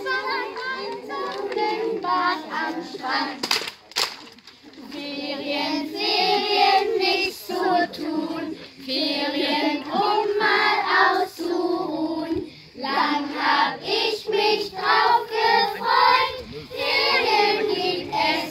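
Young children singing together, with a couple of sharp claps or knocks about four seconds in.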